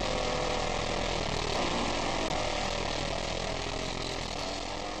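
Triumph Daytona 650's inline-four engine heard from an on-bike camera, its revs easing off and then climbing again near the end. Heavy wind rush on the microphone runs under it.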